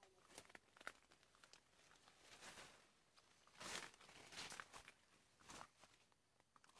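Faint rustling and crunching of footsteps through leaf litter and undergrowth, a few scattered crackles, the loudest a little under four seconds in.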